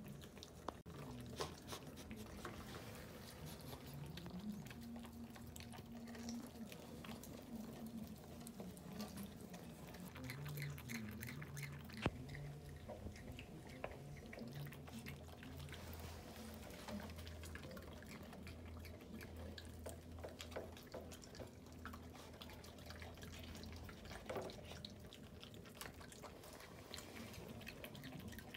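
Raccoon chewing a boiled duck egg: faint, wet, irregular smacking and clicking mouth sounds, with one sharp click about twelve seconds in.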